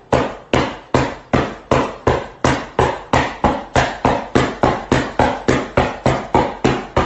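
Steady, rapid pounding: about twenty sharp thumps, close to three a second, each dying away quickly before the next.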